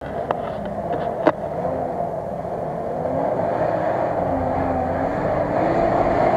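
Mitsubishi L200 pickup's engine running and revving unevenly off-road, growing steadily louder, with a few sharp knocks in the first second and a half.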